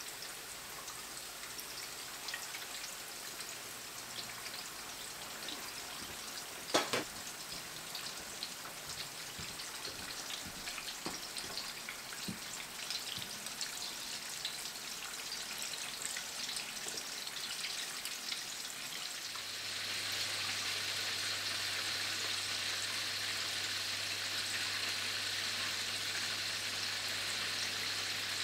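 Floured chicken wings deep-frying in a wok of hot oil: a steady crackling sizzle with many small pops, and one sharp knock about seven seconds in. About two-thirds of the way through, a steady low hum joins and the sizzle grows louder.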